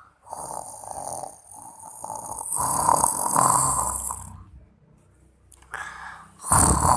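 A woman snoring in her sleep: a long snore in the first half, louder as it goes on, then a pause and a brief sound, and another loud snore starting near the end.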